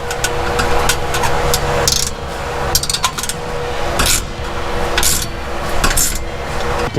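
Hand tools clicking and clanking against a car exhaust as its flange nuts are tightened, in irregular knocks with a quick cluster about three seconds in, over a steady hum.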